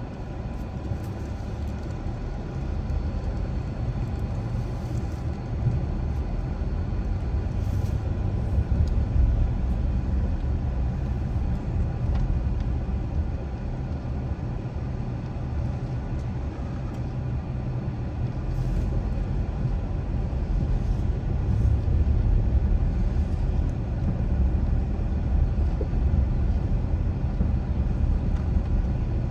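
A car being driven: a steady low rumble of engine and road noise, swelling a little in the second half.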